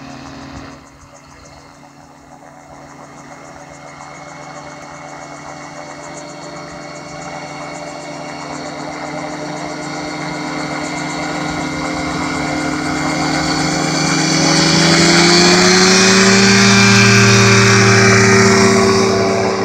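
Single-seat gyroplane's engine and pusher propeller running as it rolls down the runway, growing steadily louder as it approaches. The engine note rises about two-thirds of the way through and is loudest as it passes close by near the end.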